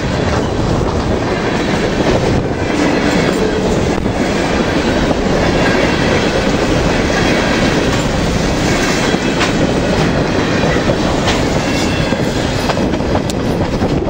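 Freight train of covered hopper cars rolling past close by: a loud, steady rumble of steel wheels on rail, with scattered sharp clicks as the wheels pass over the track.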